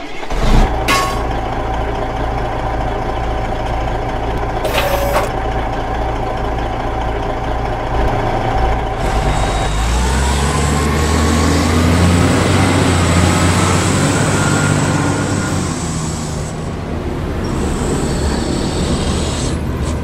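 Simulated heavy diesel engine sound for the Kyosho Blizzard RC snowcat, running steadily with a short hiss about five seconds in. About halfway through the engine note rises in pitch and grows heavier as the machine pulls forward.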